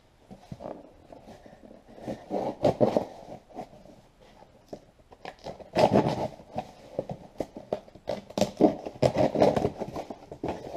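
A cardboard shipping box handled and torn open by hand: scattered bursts of scraping, crinkling and knocks, loudest about six seconds in and again near the end.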